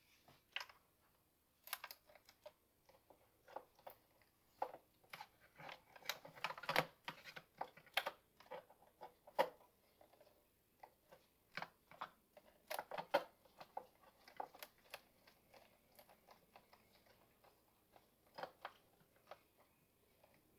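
Faint, scattered clicks and taps of hand tools and plastic engine parts as the air cleaner outlet duct is fitted and its clamps snugged, at irregular intervals, with quick clusters of clicks about six and thirteen seconds in.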